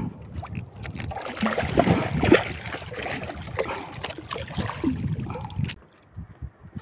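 Water splashing and hissing beside a boat with wind buffeting the microphone; the splashing hiss cuts off suddenly near the end.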